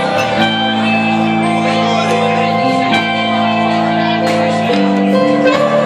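Live band playing: electric guitars, keyboard and drums, with held chords changing every second or two. The phone recording has little bass.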